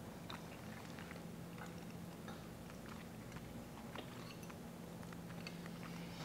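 Quiet eating at a dinner table: faint chewing and scattered small clicks of cutlery, over a steady low hum.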